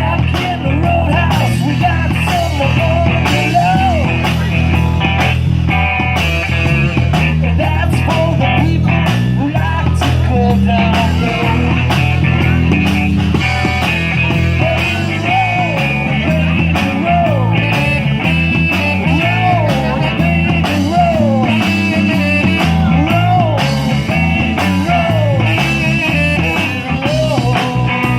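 A live band playing a blues-rock number, with a steady bass line and drums under a lead melody that slides up and down in pitch.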